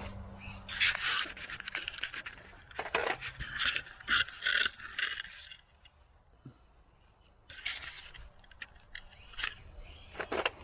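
Small 1:24 scale RC crawler scraping and clattering over rocks and gravel in several short bursts, with a pause in the middle.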